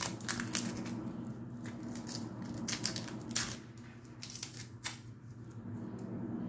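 Dry, papery onion skin being peeled off by hand, giving a run of irregular crisp crackles and rustles.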